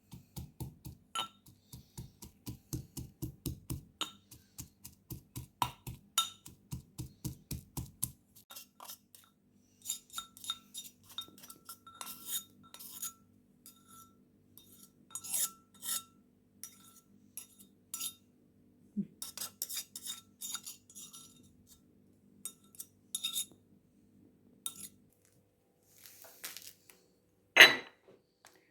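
Kitchen work with dishes and utensils: a regular run of dull knocks, about three a second, for the first several seconds, then scattered clinks of utensils against glass and dishes, and one loud knock near the end.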